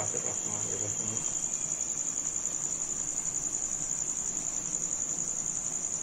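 An insect's steady high-pitched trill, pulsing rapidly without a break. A soft low rustle in the first second.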